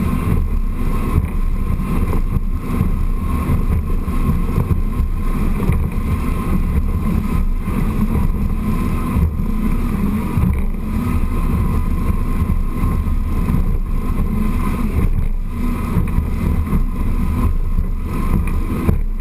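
Triple Mercury Verado 350 outboards running under way: a steady, loud low drone with a faint whine above it and rushing wind and water noise.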